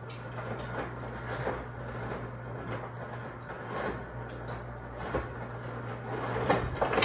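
A steady low hum with a few faint clicks of a metal spoon as powdered sugar is spooned over French toast.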